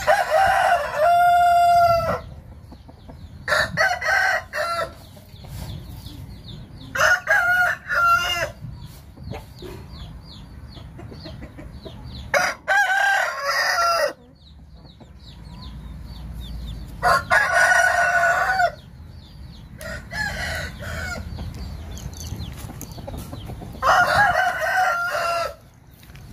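Gamecock roosters crowing, seven crows in turn, each a second or two long and a few seconds apart.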